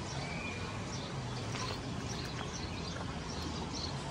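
Steady background noise with a low hum and short, faint high chirps scattered through it.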